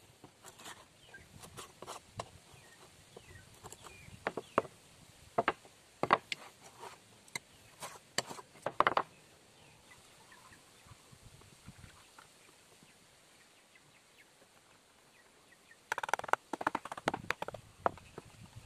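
Scattered knocks and clicks of wooden parts and tools being handled and set down on a wooden workbench, then a quiet stretch and a quick run of clattering knocks about sixteen seconds in.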